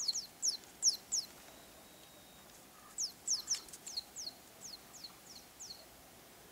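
Plastic toy mouse squeaking with short, high chirps that fall in pitch, set off as a cat bats and pins it. There are four quick squeaks at the start, then a run of about nine from about three seconds in that grows fainter.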